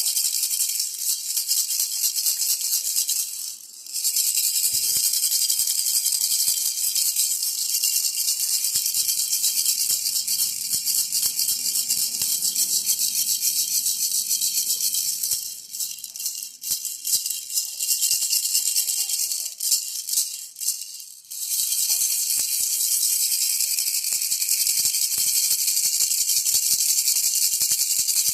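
Baby rattle shaken steadily, its beads making a dense, fast rattling hiss. It pauses briefly about four seconds in and goes sparser and uneven for a few seconds past the middle, then runs steadily again.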